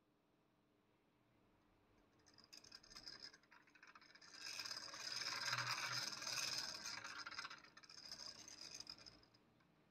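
Stepper-driven axis feed of a home-built CNC lathe moving the carriage to a new programmed position. The mechanical running noise starts about two and a half seconds in, is loudest in the middle and stops shortly before the end.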